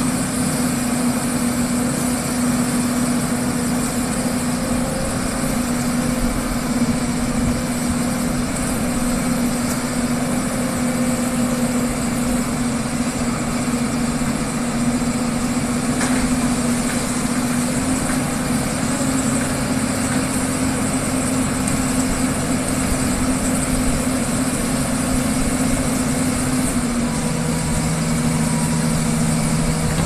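Hyundai crawler excavator's diesel engine running steadily at a constant pitch; a second, lower tone joins about three seconds before the end.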